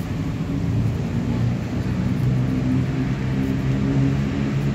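A motor vehicle engine running steadily with a low hum.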